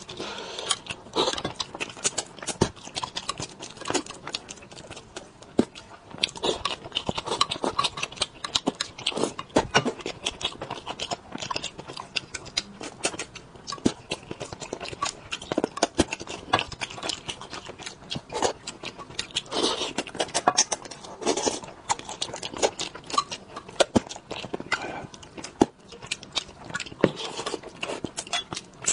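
Close-miked eating sounds of a man chewing spicy braised fish: a dense, irregular run of wet mouth clicks and smacks.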